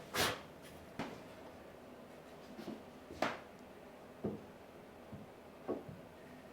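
Scattered short knocks and clatters of wooden frame parts and tools being handled during glue-up, about six in all, the loudest a brief scrape just after the start and a sharper clack about three seconds in.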